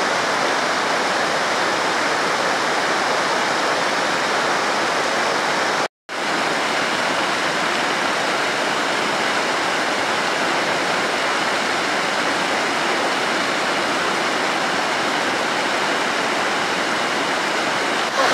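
Muddy floodwater rushing over a washed-out road and pouring down its broken edge into a gully, a steady continuous rush of water. The sound drops out completely for a split second about six seconds in.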